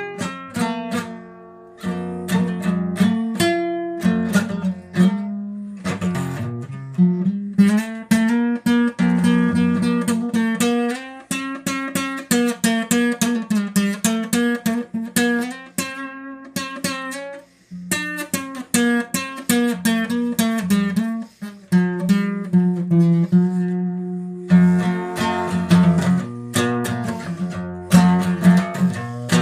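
Acoustic guitar strummed in a steady rhythm, playing chords without singing, with a couple of brief pauses between phrases.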